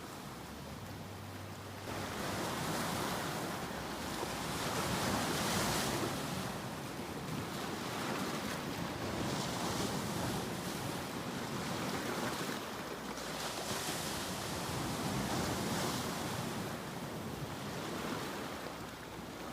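Ocean surf: a steady rush of waves washing in. It swells suddenly about two seconds in, then rises and falls every few seconds as each wave comes in and draws back.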